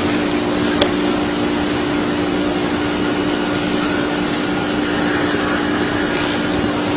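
Steady machine-like hum over a loud hiss, with one sharp click about a second in.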